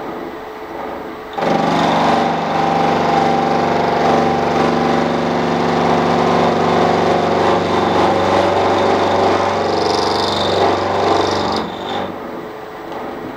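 Milling machine running with its cutter in the teeth of a 1952 Bentley flywheel ring gear, trimming a worn tooth. The machine sound comes in suddenly about a second and a half in, holds steady, and stops shortly before the end.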